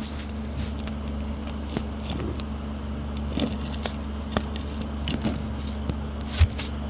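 Electric sander running with a steady hum, with scattered clicks, knocks and scraping as it is handled over the wood.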